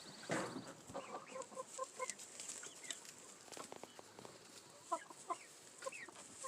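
Domestic hens clucking: a quick run of about five short clucks between one and two seconds in, then scattered short calls near the end.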